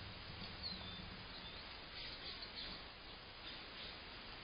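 Faint, short bird chirps over a steady outdoor background hiss.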